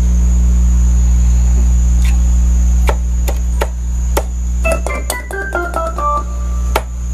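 Hammond B3 tonewheel organ with a loud, steady mains hum from its amplifier, which the owner takes for a ground hum. From about three seconds in come sharp key clicks, then a few short notes played in a descending run.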